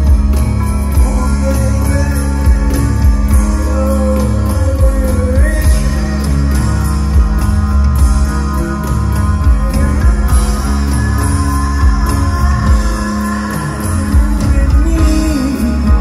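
Live rock band playing through a concert PA, heard from the crowd: a steady bass line and drums with regular cymbal hits, electric guitar and a singing voice.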